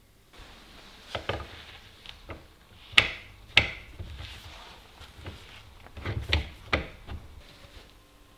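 Knocks and clicks of metal parts being fitted by hand onto the housing of an antique Metabo hand-cranked grinder, over light rubbing. Two sharp knocks come about three seconds in, and another cluster comes about two-thirds through.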